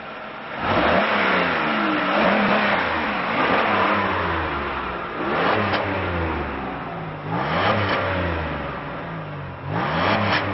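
1995 Oldsmobile Cutlass Supreme's 3.4L DOHC V6 revved from idle: one long rev about a second in, then three shorter blips, the engine note rising and falling back between them.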